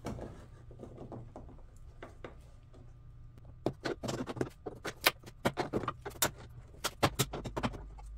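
Plastic push clips being pried out of the top of a Dodge Charger's front bumper cover with a clip removal tool. A few faint clicks at first, then a quick run of sharp plastic clicks and snaps from about halfway on.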